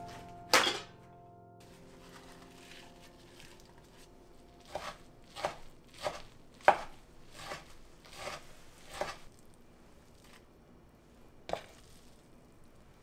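A kitchen knife chopping soft dark green leaves on a wooden cutting board: about seven cuts in a steady rhythm of roughly one every 0.7 seconds, then one more cut a couple of seconds later. Shortly after the start there is a brief sharp rip, a paper towel torn from its roll.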